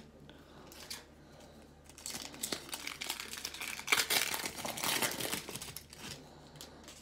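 Panini Prizm baseball card pack's foil wrapper crinkling as it is torn open by hand. It starts about two seconds in and lasts for about four seconds.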